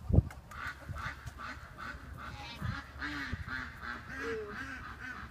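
Ducks quacking in a steady run of short calls, about three a second, with a sharp thump just after the start.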